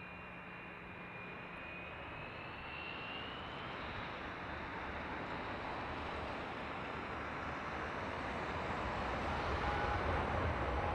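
Airbus A319's IAE V2500 turbofan engines spooling up for the takeoff roll: a whine rising in pitch over the first few seconds, then a roar that grows steadily louder, with a steady tone coming in near the end.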